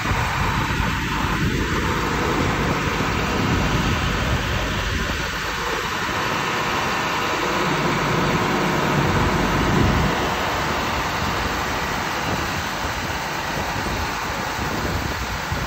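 Large farm machinery running steadily: a continuous engine and mechanical drone.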